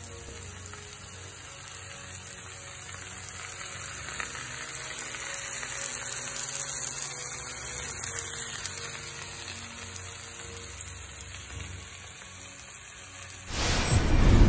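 Peppers, onions and ham frying on a Blackstone flat-top griddle under melting cheese slices, giving a steady sizzle. Near the end a loud burst of transition music cuts in.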